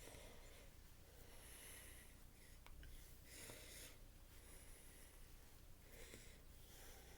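Near silence, with a few faint, short breaths.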